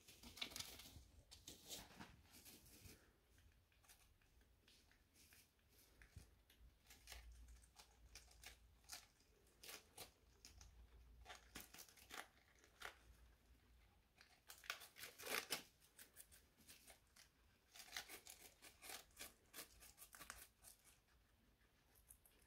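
Guinea pigs biting and tearing crisp iceberg lettuce leaves: quick, crisp crunching in clusters of bites, loudest about two-thirds of the way through.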